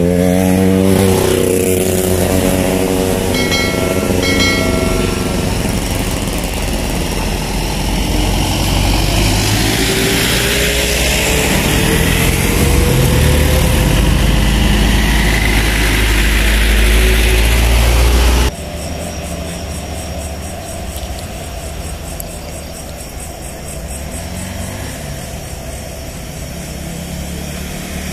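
Heavy trucks' engines running under load as they pass close by on the steep uphill road, a deep steady rumble with the engine pitch slowly rising. About two-thirds of the way in it drops abruptly to quieter, steady engine noise of traffic.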